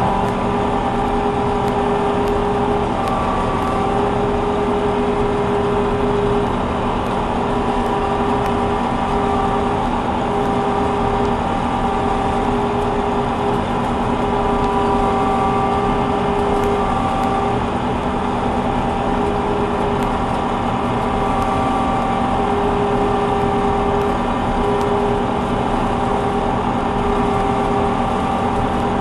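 Rasp-bar cylinder combine running steadily while harvesting soybeans, the engine and threshing machinery holding a constant drone with a higher whine that comes and goes.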